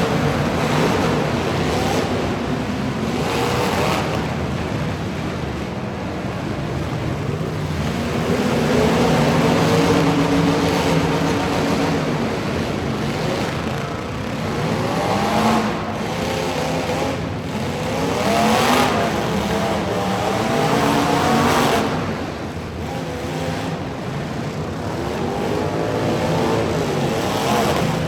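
Truck engines revving hard, the pitch climbing and falling again and again, with several sharp rising runs in the second half.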